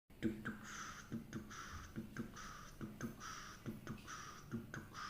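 Recorded heart sounds: paired lub-dub beats about every 0.8 seconds, with a rasping, hissing sound filling the gaps between the beats.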